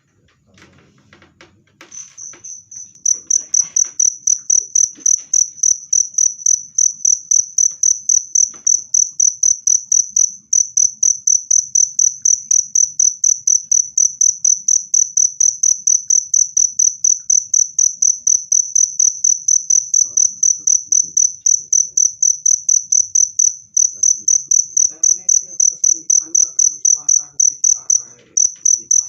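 A cricket chirping loud and fast, an even run of high pulses at about four a second. It starts about two seconds in and breaks off briefly a few times. Faint rustling and small knocks sound beneath it.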